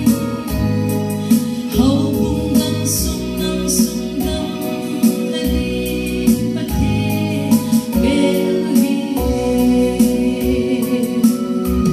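Woman singing a Kuki gospel song into a handheld microphone over an instrumental accompaniment of sustained keyboard chords and bass with a steady beat.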